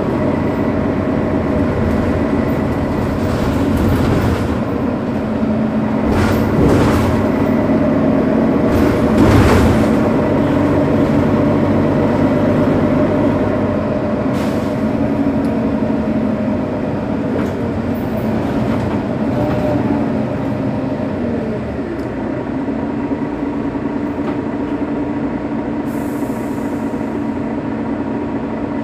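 Mercedes-Benz Citaro city bus's OM 457 hLA six-cylinder diesel idling steadily with a constant low hum, the bus stationary. A short high hiss comes near the end.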